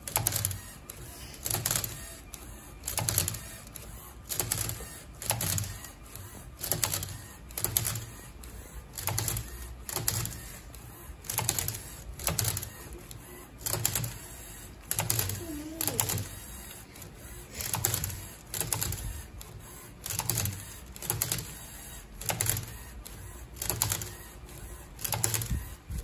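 LEGO Mindstorms Robot Inventor cube-solving robot at work: its motors whir as the plastic arms grip and twist a Rubik's cube, giving a clattering burst of plastic clicks over a low motor hum. The bursts repeat about every one and a half seconds.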